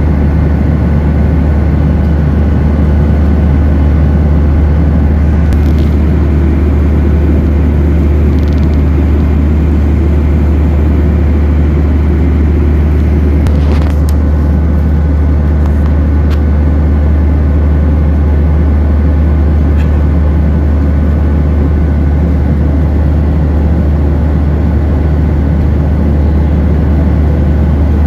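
Steady, loud cabin drone of a Boeing 737-800 in cruise: its CFM56 engines and the airflow over the fuselage, heard from inside the passenger cabin, with a few faint clicks.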